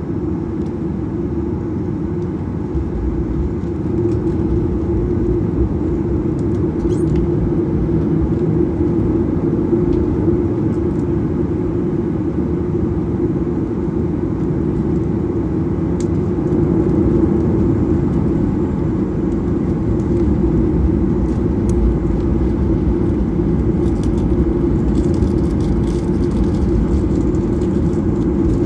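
Cabin noise of a Boeing 737-800 rolling on the ground, its CFM56-7B turbofan engines running: a steady rumble and hum that grows slightly louder about three seconds in, with a few faint ticks.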